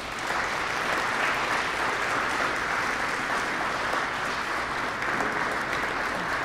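Audience applauding, with the clapping holding at a steady level.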